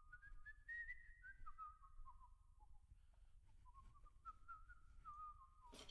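A person whistling a short tune faintly, in two phrases whose notes step up and then back down. A single sharp knock comes just before the end.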